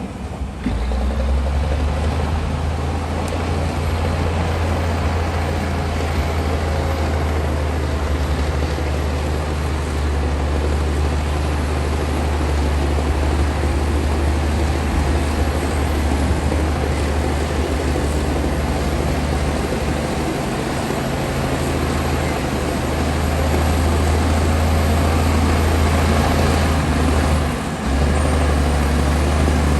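Komatsu D60P bulldozer's diesel engine running steadily under load while it cuts and pushes mud and soil, with a deep, constant hum.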